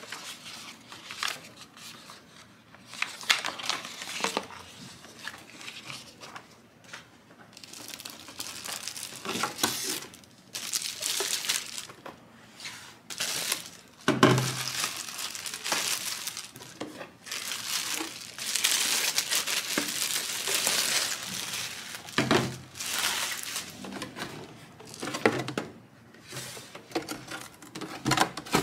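Clear plastic bag crinkling and rustling by hand as a plastic water pitcher is pulled out of it, with paper leaflets rustling near the start. Two dull knocks come about halfway through and about three quarters of the way through.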